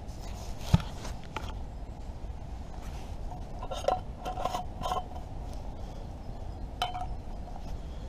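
Brass spirit burner and its screw lid being handled and set down, giving light metallic clinks with a brief ring: a cluster about halfway through and one more near the end. There is also a single dull knock about a second in.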